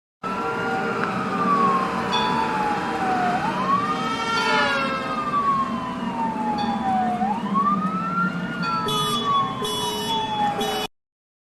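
Police siren wailing: a slow fall in pitch, then a quick rise, repeating about every four seconds. Near the end come short bursts of a second, steadier horn-like tone. It starts and cuts off suddenly.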